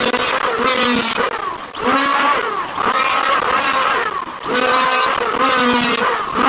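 Power tool motor whining, its pitch dipping and climbing back again and again, about every second or so, as it is loaded and released.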